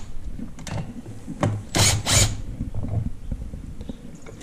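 Cordless impact driver running in two short bursts about two seconds in, backing out the hex screws that hold a wheel hubcap. A few light clicks come before it.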